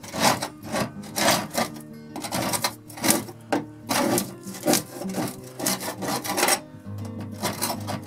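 Putty knife scraping leftover white foam off a model railroad layout in quick strokes, about two a second, over background guitar instrumental music.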